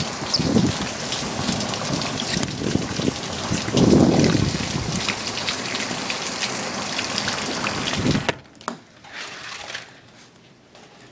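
Heavy rain pouring down, with two deep rumbles about half a second in and again about four seconds in. About eight seconds in the downpour drops off suddenly to a much quieter background.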